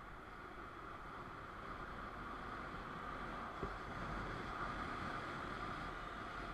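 Steady rush of wind and road noise from a moving motorcycle, growing a little louder as it goes, with a single short tap a little past halfway.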